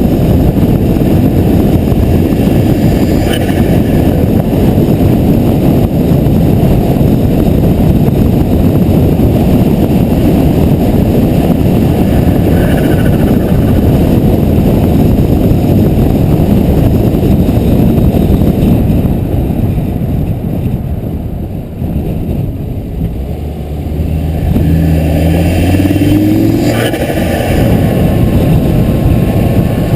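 Volvo S60R's turbocharged five-cylinder engine running under way with its diverter valve line disconnected, over heavy road noise. The sound eases off about two-thirds of the way through, then the engine pulls again with a rising tone, and there is one sharp click near the end.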